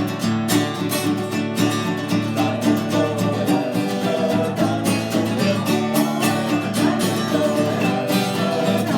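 Instrumental break of a folk song: acoustic guitar strummed in a lively, even rhythm.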